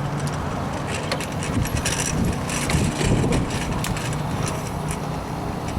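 A car driving slowly, heard from inside the cabin: a steady low engine and road hum, with scattered light clicks and rattles.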